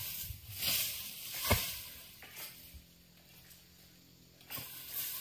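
Leaves and undergrowth rustling and brushing close by, with a soft knock about a second and a half in. It falls nearly quiet for a couple of seconds before the rustling starts again near the end.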